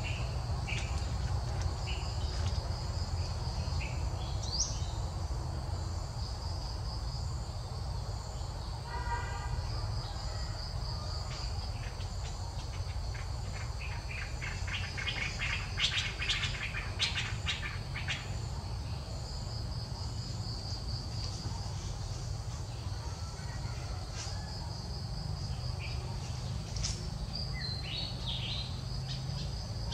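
Steady chirring of insects, crickets or cicadas, with scattered bird chirps. About a third of the way through there is a short pitched call, and around the middle a few seconds of rapid clicking chatter.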